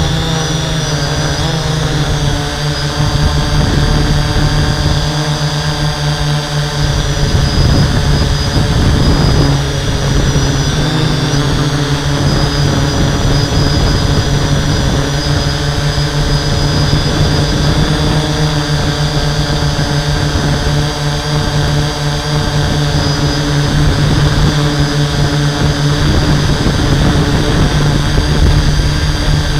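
Hexacopter's six brushless motors and 11-inch propellers in flight, a loud, steady hum picked up by the camera on the frame, over a low rumble.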